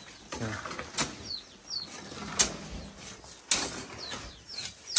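A hand tool slapping and scraping wet cement in a steady rhythm, about once every second and a quarter, as a floor is smoothed. Small birds chirp briefly over it.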